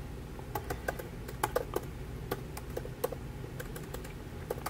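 Computer keyboard typing: about a dozen separate keystrokes at an uneven pace.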